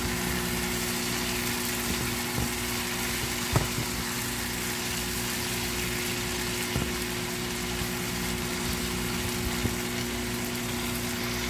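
Chicken tenders and onions sizzling in a frying pan, over a steady machine hum, with a few light taps of a silicone spatula against the pan.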